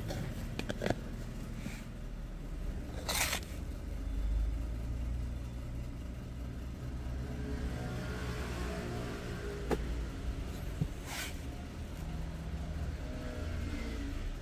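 A ceramic soup spoon scooping dry toast-crust powder out of a plastic tub, two short scrapes (a few seconds in and again about eleven seconds in) with a few small clicks, over a steady low rumble.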